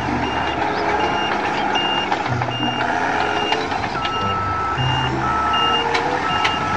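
Heavy dump truck running under a steady rumble, with a reversing alarm beeping about twice a second; a second, lower-pitched reversing beeper joins about four seconds in.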